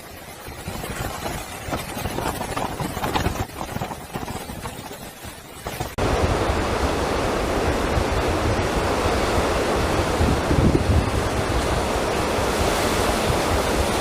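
Typhoon wind and rushing water, with wind buffeting the microphone. About six seconds in it cuts abruptly to a louder, steady rush.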